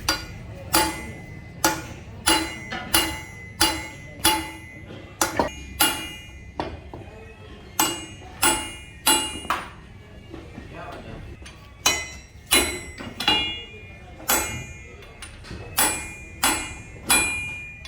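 Repeated hammer blows on metal, about one every 0.7 s, each with a short metallic ring, pausing briefly about ten seconds in.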